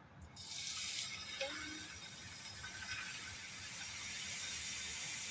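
Tap water running steadily into a bowl to make a salt-water soak for the soup ingredients, starting just after the beginning.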